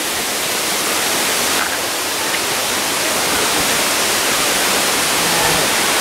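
Waterfall rushing over rocks: a steady, even hiss of falling water.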